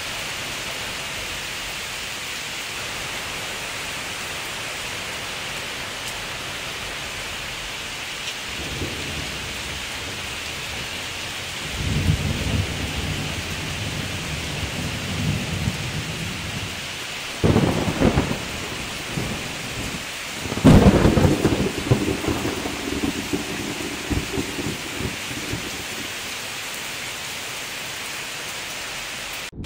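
Steady rain falling, with thunder: a low rumble builds from about a third of the way in, then two sudden claps a few seconds apart, each rolling on for several seconds before dying away.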